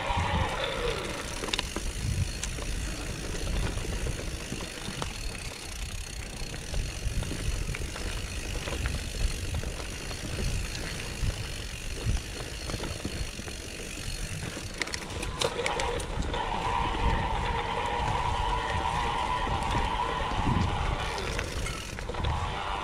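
Mountain bike ridden downhill over a rocky trail: wind rumble on the camera microphone with the tyres, chain and frame rattling and knocking over stones.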